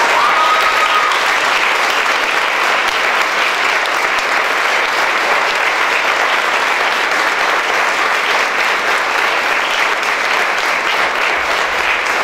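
Audience applauding, a dense, even clapping held at a steady level throughout.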